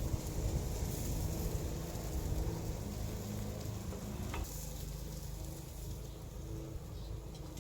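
Food sizzling on a hot charcoal grill, a steady crackling hiss.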